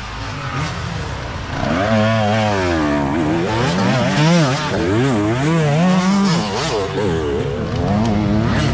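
Youth dirt bike engines revving up and down through a tight turn, the pitch rising and falling over and over as the throttle is worked. A nearby bike gets loud about two seconds in.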